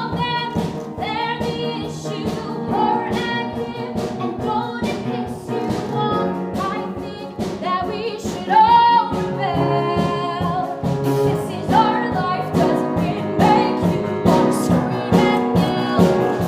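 Musical-theatre song: several voices singing over an instrumental accompaniment with a steady beat.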